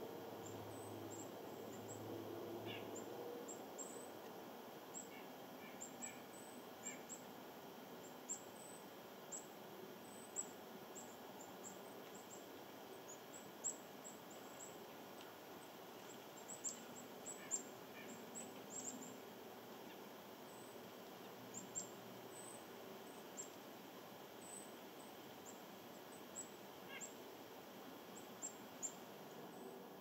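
Small birds giving many short, high-pitched chirps at irregular intervals over a steady low background hiss.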